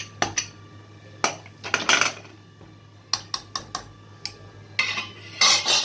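Metal pressure cooker lid being fitted and closed onto the pot: scattered metal clinks and knocks against the rim, with a louder scraping rattle near the end.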